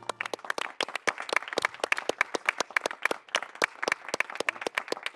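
Applause from a handful of people: separate hand claps, fast and uneven, as the last of the music dies away.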